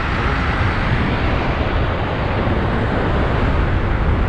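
Steady rush of wind and road noise on the microphone while riding a near-silent 72 V electric bike at speed.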